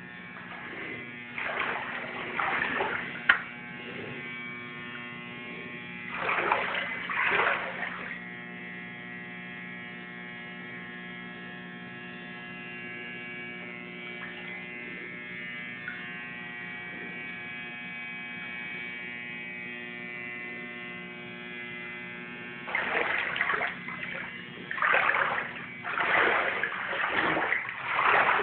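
Footsteps sloshing and splashing through shallow floodwater on the floor, in a few bursts. Under them runs a steady electrical hum.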